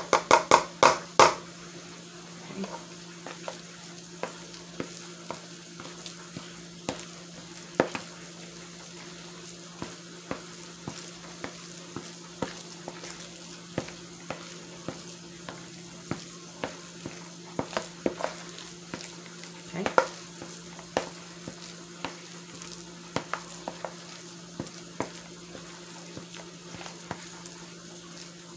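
Plastic spoon stirring mashed potatoes in a bowl: a quick run of knocks against the bowl at the start, then irregular taps and soft scrapes. Under it a steady low hum and a faint hiss, like chicken frying on the stove.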